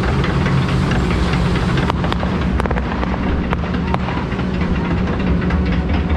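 Log flume boat being carried up the lift: a steady low mechanical rumble from the lift, with a few sharp clicks.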